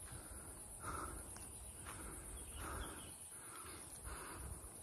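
Steady high-pitched insect chirring, with a few short, fainter mid-pitched sounds about a second apart.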